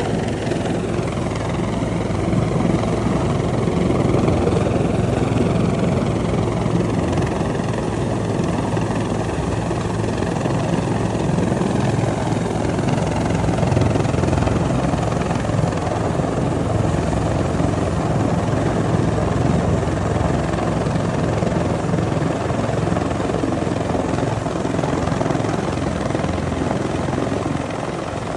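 Helicopter running steadily, its rotor and engine sound continuous and loud, with a slow sweeping shift in tone as it moves.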